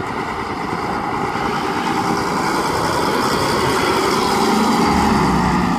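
Volvo B10M bus's underfloor six-cylinder diesel engine pulling away and driving close past, growing louder to a peak about five seconds in.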